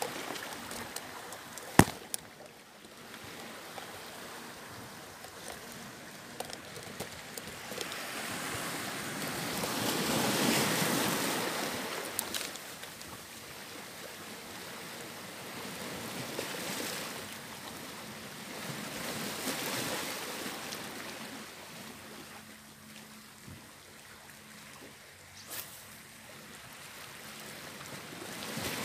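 Sea waves washing in among shoreline rocks, the surf swelling and fading every few seconds. A single sharp click about two seconds in.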